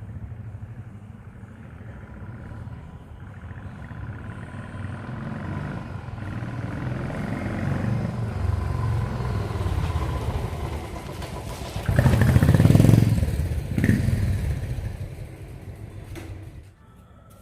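Royal Enfield Bullet single-cylinder engine running through an old Classic stock exhaust, its thump growing steadily louder, peaking in two loud bursts about twelve and fourteen seconds in, then fading and cutting off near the end.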